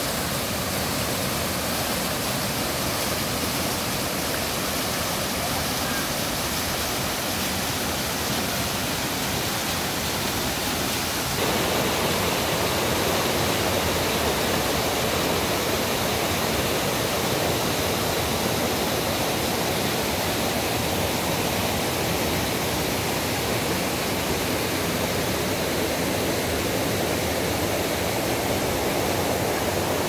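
Mountain stream rushing and splashing down over boulders in small cascades: a steady rush of water that becomes louder and fuller about eleven seconds in.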